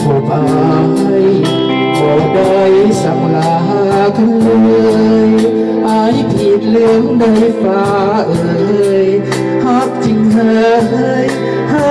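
Live band music: electric guitar and keyboard with a male voice singing, over a steady beat.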